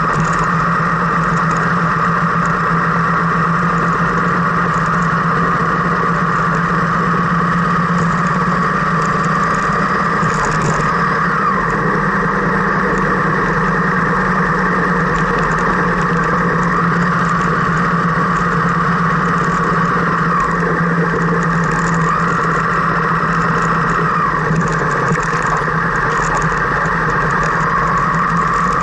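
Car engine running at a steady, low speed, heard from inside the cabin as an even drone.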